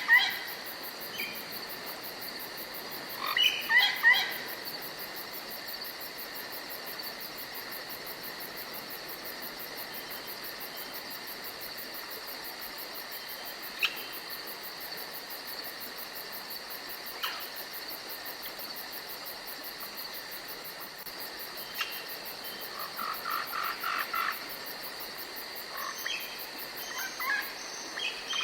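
Forest ambience: a steady high insect drone with scattered bird calls. There is a short burst of chirps about four seconds in, a run of quick repeated notes a little past twenty seconds, and more chirping near the end.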